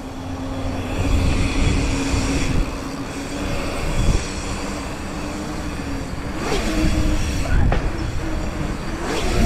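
Mountain bike rolling along a dirt trail: wind buffeting the microphone and tyre noise, with a steady humming whine from the bike that shifts pitch a couple of times.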